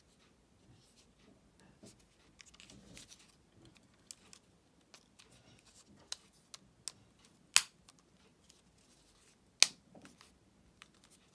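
Plastic shell of a replacement Fiat 500 flip-key fob being handled and pressed together: light scattered clicks and rubbing, then two sharp snaps about two seconds apart as the top cover clips into place.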